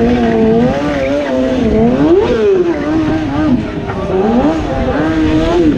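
Motorcycle engine revving up and down again and again during stunt riding, its pitch climbing and dropping every second or two.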